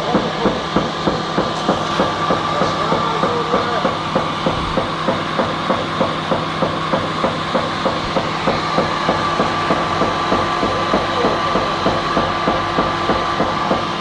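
Coal-grinding disintegrator running, with a regular knock about three times a second that seems to come once per turn of the unloading auger, over the steady hum and whine of the motor and gearbox.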